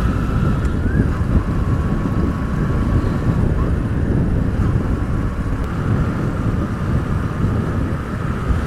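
Motorcycle riding at a steady cruising speed: the engine running under a constant low rush of wind buffeting the microphone.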